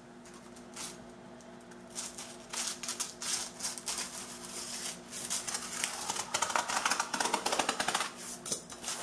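Scissors cutting through corrugated cardboard: a run of crunching snips that starts about two seconds in and is quickest and loudest in the last few seconds.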